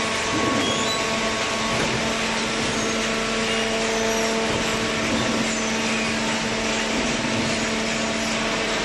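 Vertical baler's hydraulic power unit running steadily, the motor and pump giving a constant hum over a noisy whir.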